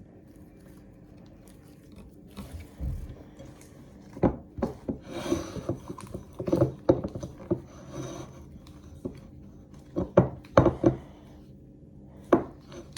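Slime being squished and worked with makeup pigment mixed in: irregular wet clicks and small pops, coming in clusters from about four seconds in after a quiet start.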